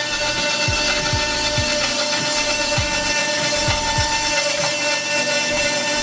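Ryowa BS-200 band saw running with a steady whine, its blade cutting through a 20 mm wooden board.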